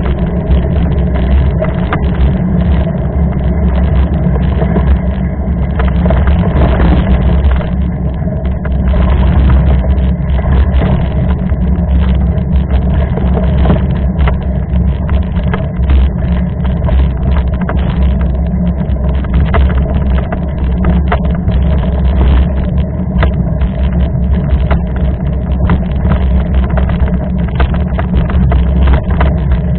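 Wind rumbling steadily on the microphone while riding a mountain bike, with frequent short rattles and knocks from the bike going over a rough trail.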